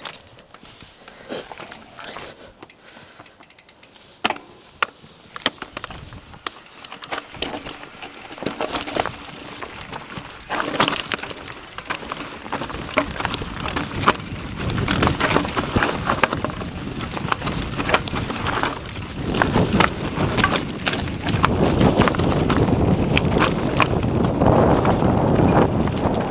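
Mountain bike riding over a rough dirt and gravel trail: tyres crunching over stones and leaves, with frequent clicks and rattles from the bike. About halfway through, wind noise on the microphone builds and the sound grows steadily louder as the bike picks up speed downhill.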